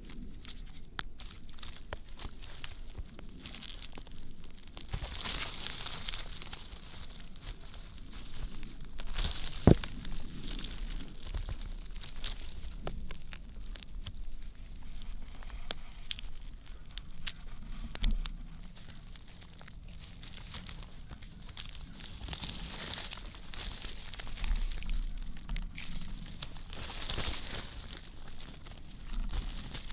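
Thin roots being worked loose and torn out of dry, crumbly clay soil: irregular crackling and tearing of root fibres with soil crumbling and trickling, and a sharp snap about ten seconds in.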